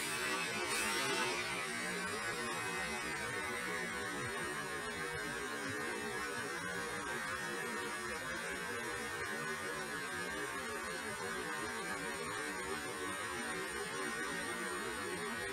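DJI Mavic Mini quadcopter's propeller motors idling, the drone sitting on the ground with its blades spinning: a steady whir.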